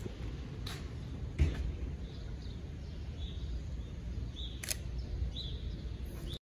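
Outdoor ambience: a steady low rumble with a few short, high bird chirps in the second half. A thump about a second and a half in and a sharp click near the end stand out, and the sound cuts off abruptly just before the end.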